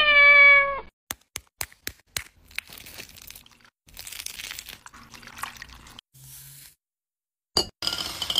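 A cat's meow at the start, then a run of sharp taps and crackling as an eggshell is cracked and picked apart with tweezers. Near the end an electric hand mixer starts, whirring with a high whine as its beaters whisk egg yolk.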